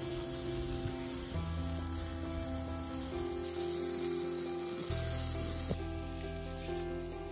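Lamb sausages sizzling on a wire grill rack over a wood fire, a steady hiss, with background music playing underneath.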